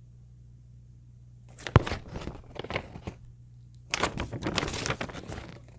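Paper rustling and crinkling as it is handled, in two spells, with a sharp tap in the first one.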